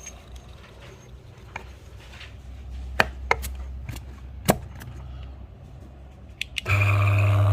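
Scattered light knocks and taps, a few sharper ones about three and four and a half seconds in, then near the end a small electric motor starts up with a steady hum.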